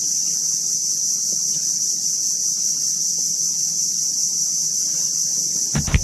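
Steady high-pitched insect drone, with a few sharp knocks near the end.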